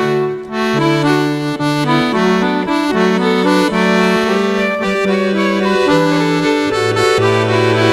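Accordion playing an instrumental tune: a melody of held and moving notes over bass notes that step every second or so.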